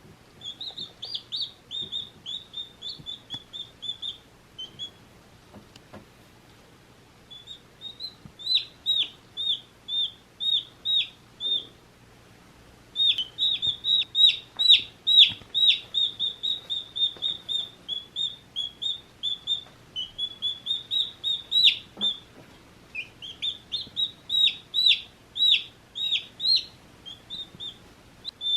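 Day-old baby chicks peeping: quick runs of short, high, downward-sliding chirps, several a second, with brief pauses of a second or so between runs.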